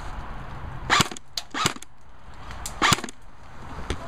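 Airsoft guns firing: a handful of separate sharp shots spread over a few seconds, the loudest about a second in and about three seconds in.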